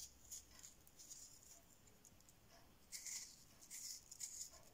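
Faint scraping of a kitchen knife cutting the stringy pulp out of a slice of raw butternut squash, in a few short strokes, the loudest about three seconds in.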